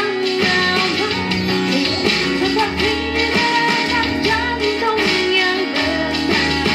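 Live band performance: a singer's melody over strummed guitar and held bass notes, with a steady beat.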